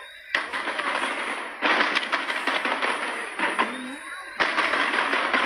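Fireworks crackling: a dense, rapid crackle of many small sharp pops. It breaks out suddenly three times: just after the start, about a second and a half in, and again near the end.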